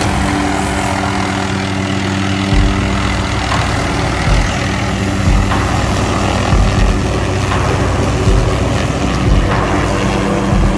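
Hughes 500D helicopter's turbine and five-blade main rotor running steadily with a constant pitched drone as it flies close overhead. From about two and a half seconds in, irregular low buffeting joins it.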